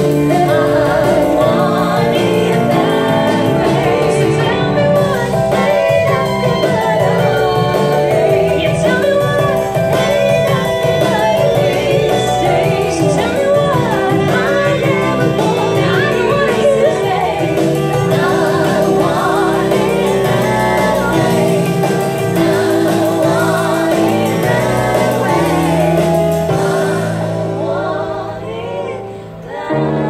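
Female vocal trio singing together into microphones, amplified through small PA speakers over an instrumental backing track; the song winds down and ends near the close.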